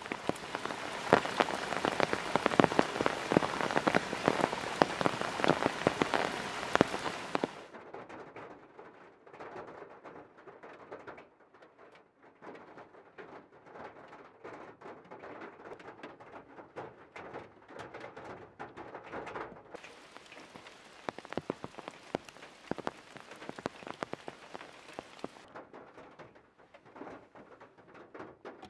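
Rain falling: heavy and steady with a dense hiss at first, then after about seven seconds lighter, with single drops ticking on the van, heard from inside the cabin.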